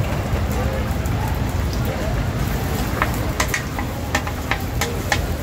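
Egg and noodles frying in a large wok, with a steady sizzle. From about halfway through, a metal spatula and ladle scrape and clink sharply against the wok several times as the egg is stirred.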